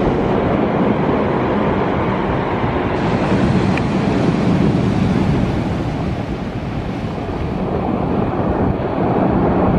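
Heavy surf washing onto a stony beach, a steady roar of breaking waves, with wind buffeting the microphone.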